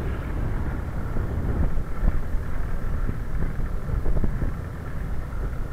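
Wind rushing over the microphone and road rumble from a Quest velomobile riding along at speed, steady throughout, with a few small knocks.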